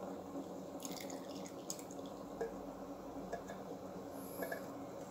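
Coconut cream dribbling in a thin stream and dripping from a tin into a pot of cooking black beans, with a few light clicks about a second in.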